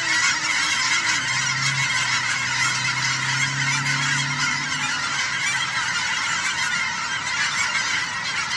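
A large flock of geese honking all at once in a dense, continuous chorus. A low steady hum sits underneath from about one to five seconds in.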